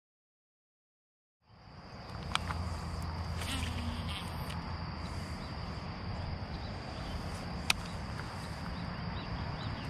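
Dead silence for about a second and a half, then outdoor pond ambience fades in, carried by a steady high-pitched insect drone. Two sharp clicks come through, the louder one near the end.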